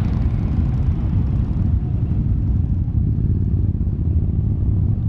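Several motorcycle engines rumbling at low speed as a column of motorcycles rolls slowly past, a steady, even low rumble.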